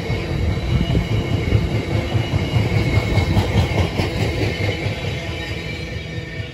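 Freight train tank wagons rolling past on the rails: a steady rumble of wheels over the track with faint high ringing tones, easing a little as the last wagon goes by near the end.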